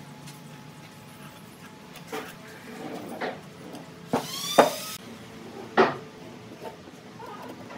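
Wooden blocks being handled on a wooden workbench: a string of knocks and clunks, the loudest about four and a half and six seconds in, with a brief rising squeak between them.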